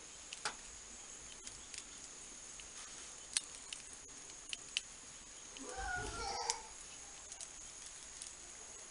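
Faint scattered light clicks. About six seconds in there is a short squeaky, wavering sound over a low thud.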